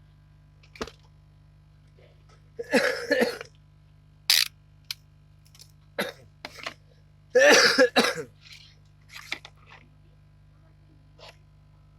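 A person coughing in two loud bouts, about five seconds apart, with a few short sharp clicks between them.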